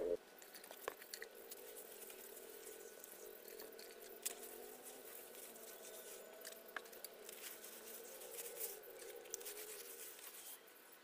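A hand smearing wet mud slurry over an earthen floor: faint wet squishing with a few sharp clicks.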